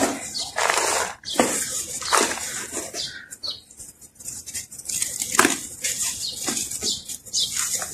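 Dry earthy sand and hard sand clumps crumbled and squeezed by hand: irregular bursts of gritty, crunchy rustling, with a few sharp cracks as chunks break.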